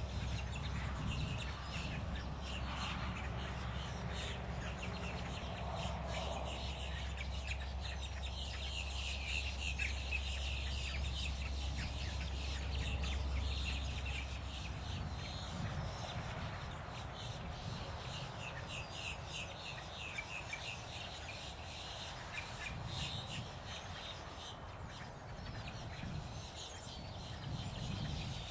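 Bald eagles giving high-pitched chittering calls: long runs of quick chirps, repeated again and again. A low steady hum runs underneath and stops about halfway through.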